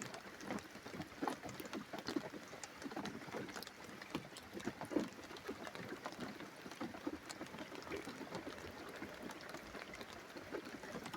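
Steady rain during a thunderstorm, with a dense, irregular spatter of drops hitting and dripping from nearby surfaces.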